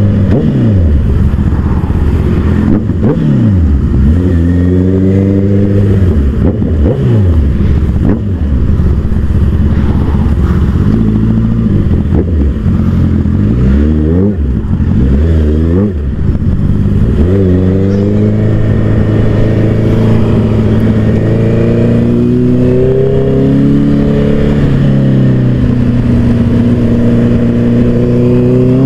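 Honda CBR motorcycle engine, booming as it repeatedly revs up and drops back through the gears. About halfway through it settles into a steadier run, with a few short rises in pitch.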